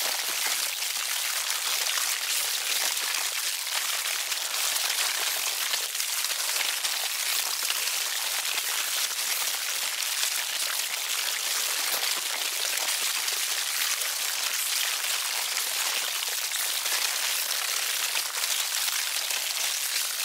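Sound effect of a bug colony eating flesh: a dense, steady crackle of countless tiny chewing and biting clicks, looping without a break.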